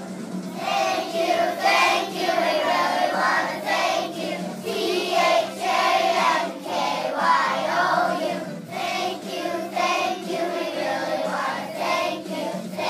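A group of kindergarten children singing together.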